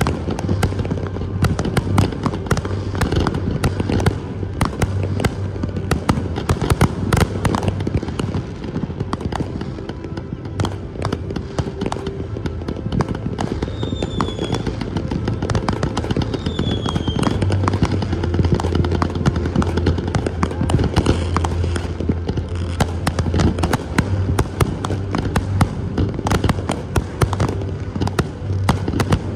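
Fireworks display: aerial shells bursting in a rapid, unbroken string of bangs and crackles.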